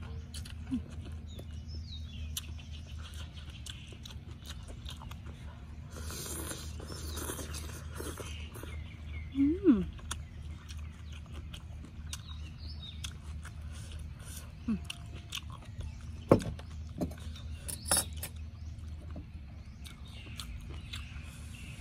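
A person eating noodle soup with chopsticks: slurping and chewing, with a few sharp clicks and a brief falling squeak just before ten seconds, over a steady low hum.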